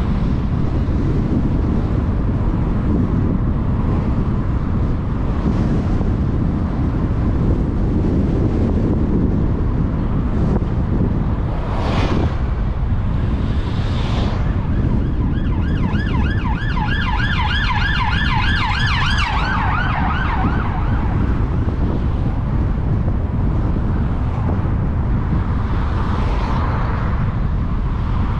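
Steady low road and wind rumble from a moving vehicle. About halfway through, an emergency-vehicle siren sounds for several seconds with a rapid up-and-down warble, then fades out.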